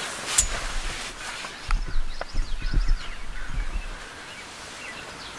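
Irregular low thuds and rustling, strongest from about two to four seconds in, with songbirds chirping faintly in the background.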